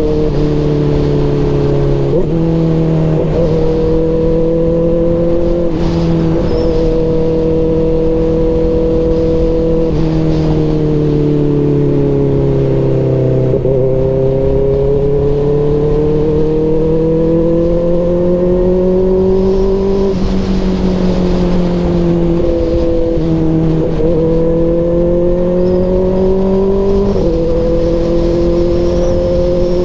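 Kawasaki ZX-4RR's 399 cc inline-four running through an aftermarket SC Project CRT exhaust, held at mid revs. Its pitch drifts slowly down and up over several seconds, with a few sudden steps in pitch.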